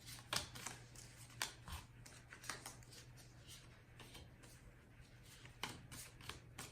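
Baseball cards being flipped through by hand: faint, irregular clicks and slides of card stock, a few times a second at most. A steady low hum runs underneath.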